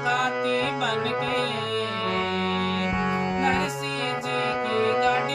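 Bulbul tarang (Indian banjo) strummed, playing a bhajan melody of held, ringing notes with a new note struck every second or so.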